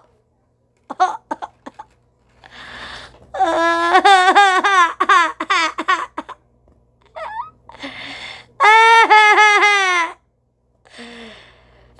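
A person laughing in a high voice, two long fits of rapid ha-ha-ha, the first a few seconds in and the second near the end, with short snatches of giggling before them.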